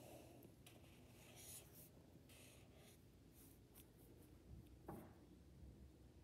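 Faint short strokes of a felt-tip marker drawing on paper, a quiet hiss with each line, and a light tap about five seconds in.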